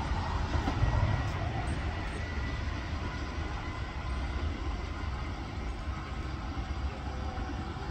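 Tper Alstom Coradia Stream "Pop" electric regional train pulling out of the station and moving away, its steady running rumble slowly fading.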